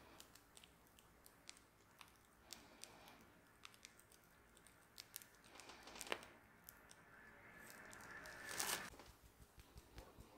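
Faint crinkling and small clicks of a piping bag being squeezed as Italian meringue is piped out through a metal tip, swelling to a louder rustle near the end.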